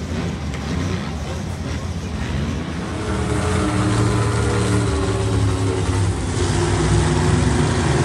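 Several ATV engines buzzing across the dirt arena. From about three seconds in, a monster truck's supercharged V8 takes over, running loud and steady and growing louder as it drives across the track.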